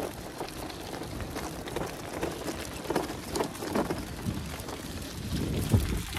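Wind buffeting the microphone while an electric bike rides over a rough, stony track, its tyres and fittings giving many small scattered clicks and rattles. A stronger gust of wind rumble comes near the end.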